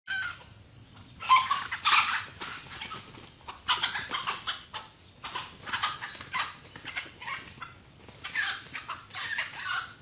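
Red junglefowl clucking and squawking in five clusters of loud calls, each about a second long, with quieter gaps between them.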